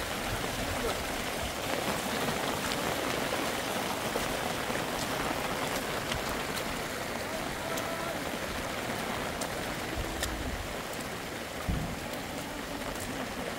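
Steady rushing of a muddy floodwater stream running over stones, with rain falling, and a brief low thump near the end.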